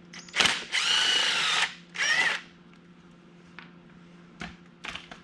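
Cordless power drill-driver running in two short trigger pulls, about a second and then half a second, its whine rising and falling in pitch. A few light clicks follow.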